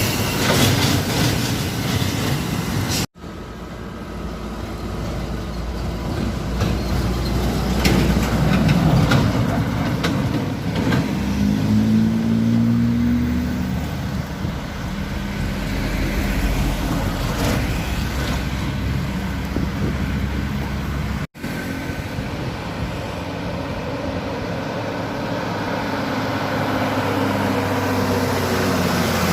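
Heavy truck engine labouring on a steep uphill climb, its pitch rising and falling as it strains. The sound breaks off abruptly twice where the recording is cut.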